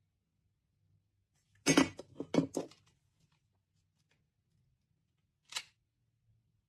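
A quick run of four or five sharp knocks or clinks about two seconds in, the first the loudest, then one short, brief noise near the end, with quiet in between.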